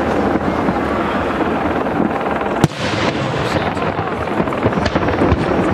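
Display firework shells bursting in a continuous din of explosions, with one sharp, loud bang about two and a half seconds in and a few smaller reports after it.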